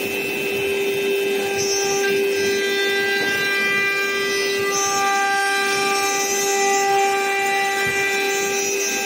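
A 9 kW CNC router spindle cutting an MDF panel, giving a steady whine with overtones that fade in and out, over a rushing noise of cutting and dust extraction.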